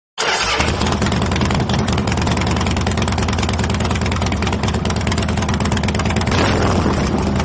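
Motorcycle engine running steadily with a fast, even firing beat. It cuts in abruptly at the start and grows a little louder near the end.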